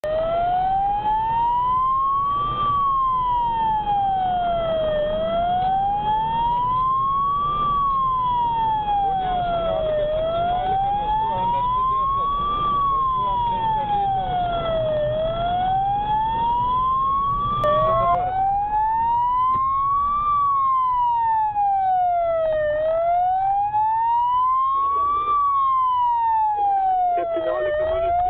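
Police car siren wailing, its pitch sliding slowly up and down about once every five seconds. The sweep breaks off and restarts about 18 seconds in. Low engine and road noise from the pursuing patrol car runs underneath.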